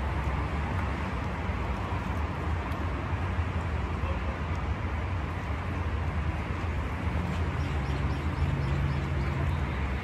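Steady low rumble and hiss of a large manti steamer boiling hard on its burner, with a few faint light taps in the second half.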